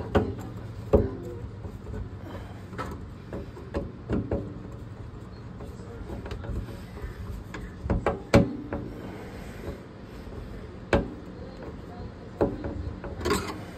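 Irregular knocks and clunks of hand work on kitchen-sink plumbing, about ten in all, the loudest a little past eight seconds in, over a steady low hum.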